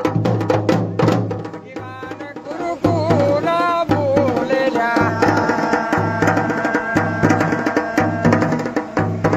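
Dhol and damau drums playing a steady folk rhythm, with a wavering pitched melody coming in over the drumming about three seconds in.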